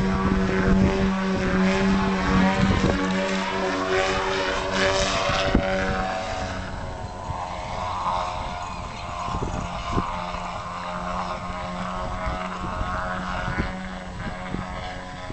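Piston engine and propeller of an aerobatic plane running hard, its pitch sweeping during the manoeuvre, then growing fainter about six seconds in as the plane moves away.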